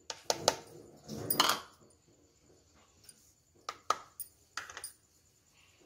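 Semolina poured from a plastic cup into a plastic mesh sieve over a bowl. There are a few sharp taps and clinks as the cup knocks against the sieve, and a short rush of grain about a second and a half in.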